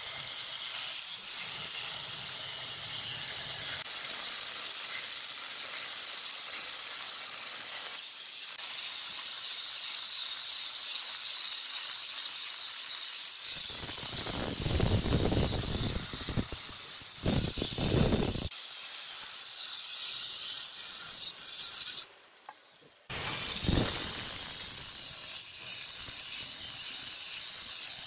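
Handheld water-fed marble cutter with a diamond blade cutting through a granite slab: a steady hissing grind of blade on wet stone. The grinding gets louder and deeper for several seconds in the middle, and again just after the sound drops out briefly near three-quarters of the way through.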